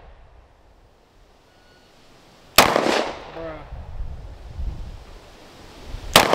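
Canik Mete MC9 9mm pistol fired twice, slow aimed shots about three and a half seconds apart.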